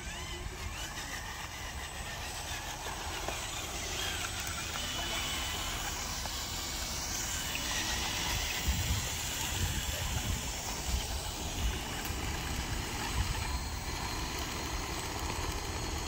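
Radio-controlled model construction vehicles running: a steady motor noise with occasional knocks from about the middle on.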